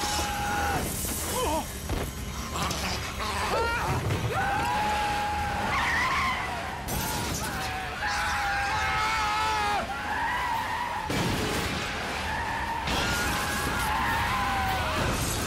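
A cartoon getaway van's tyres screech in several long squeals as it speeds off and swerves, over a low engine rumble. Crashes and breaking glass come in between the squeals.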